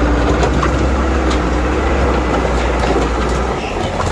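A bulldozer's heavy diesel engine running at a steady pitch, with scattered short knocks over it; the low engine hum eases off about three and a half seconds in.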